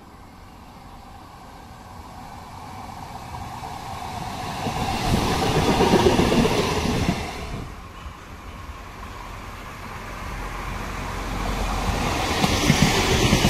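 Electric Euskotren tram rolling past on its rails, growing louder to a peak about six seconds in and then falling away; a second tram then approaches, getting steadily louder near the end.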